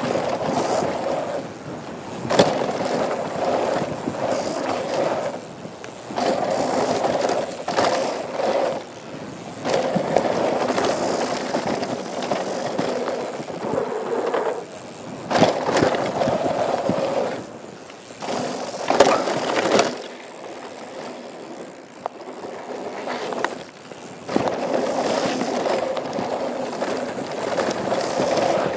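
Downhill mountain bike riding a rough dirt trail: tyres rolling and the bike rattling over the ground in stretches of a few seconds, with several sharp knocks from hard bumps or landings.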